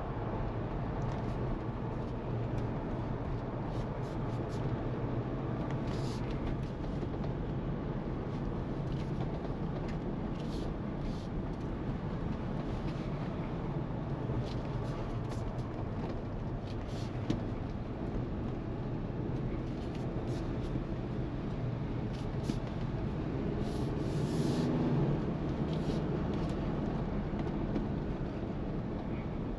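Jeep Wrangler Rubicon Unlimited with its 2.0-litre turbocharged petrol four-cylinder on the move: a steady low engine and road noise with a few faint ticks, growing a little louder about three-quarters of the way through.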